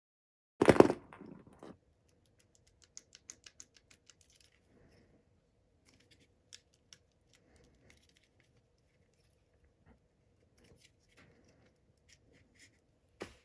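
Handling noise from a HomePod mini's speaker assembly and its cables being worked by hand: a knock less than a second in, then a run of light clicks and scratches, and a sharper click near the end.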